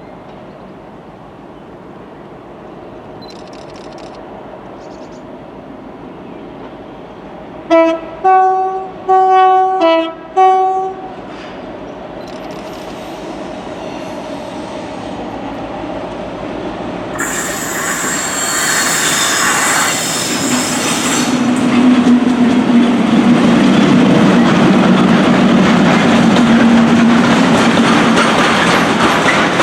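A train sounds a quick run of four or five short horn blasts about eight seconds in, then comes closer and passes, its rumble and wheel clatter growing steadily louder. A high hissing squeal about two-thirds of the way through, then a steady engine drone.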